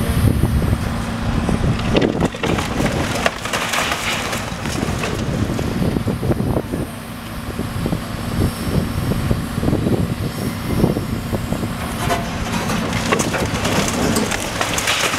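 Long-reach demolition excavator's diesel engine running with a steady drone while its bucket knocks and scrapes at a brick wall, giving repeated crunches and clatters of breaking masonry and wood.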